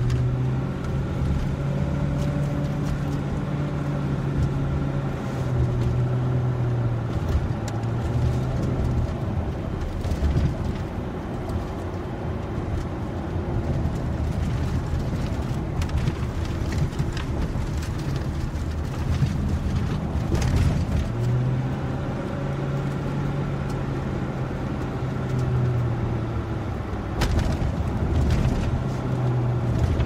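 Range Rover SUV driving over a bumpy road: a steady engine hum that eases off in the middle and comes back later, over tyre and road noise with frequent short knocks and rattles from the bumps, the sharpest knock near the end.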